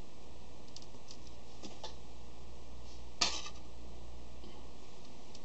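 Small steel ratchet parts and a hand tool clicking against each other and the aluminium tray: a few faint ticks, then one sharper metallic clink about three seconds in.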